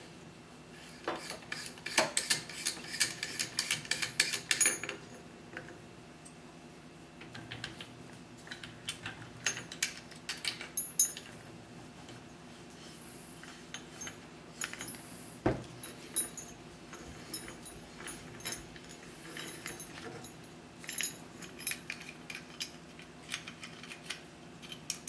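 Metal rifle parts and tools being handled, with scattered clicks and clinks and a run of quick, even clicks lasting a couple of seconds about two seconds in. A faint steady hum runs beneath.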